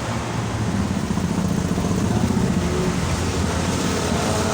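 Road traffic noise: a motor vehicle's engine running steadily, swelling a little midway and easing off.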